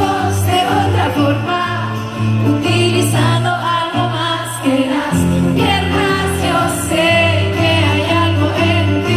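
Live band music with a female singer's voice over sustained bass notes.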